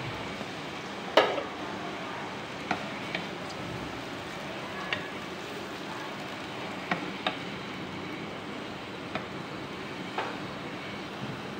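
Chopped onions sizzling in hot oil in a karahi, stirred with a wooden spatula that knocks against the pan now and then, the loudest knock about a second in.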